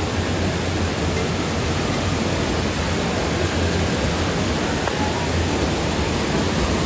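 Steady rush of water spraying and splashing down from a water-play climbing structure, with a low hum underneath.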